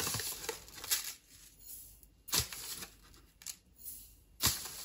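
Chia seeds being spooned out of a crinkly plastic pouch with a measuring spoon and tipped into a slow cooker crock: rustling of the bag and a few sharp taps of the spoon, about a second apart.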